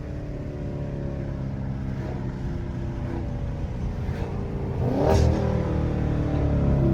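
Dodge Challenger Scat Pack's 392 Hemi 6.4-litre V8 pulling under acceleration, its exhaust loud with the catalytic converters gutted. The engine note climbs and gets louder about five seconds in.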